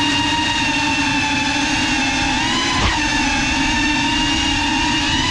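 GEPRC CineLog 35 cinewhoop's motors and ducted 3.5-inch propellers whining steadily in flight at a fairly constant throttle, the pitch wavering slightly, with a brief click and a short rise in pitch about three seconds in.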